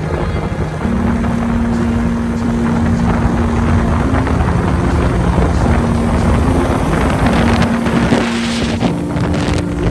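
Wind rushing over the microphone and engine and road noise from a motorcycle riding at speed, over background music whose held low notes step to a new pitch every one to three seconds.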